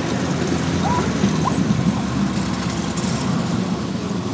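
Several demolition-derby cars' engines running as they drive and spin about on grass, a steady rumble of mixed engine noise.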